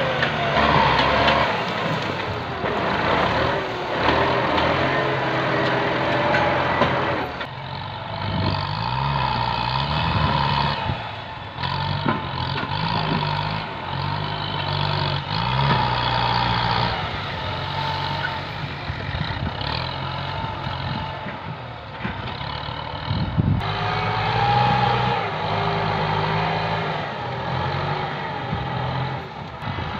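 A Kubota tractor's diesel engine works under load as its front blade pushes through brush and small trees, the engine pitch rising and falling. A whine runs over the engine, with occasional short knocks and cracks.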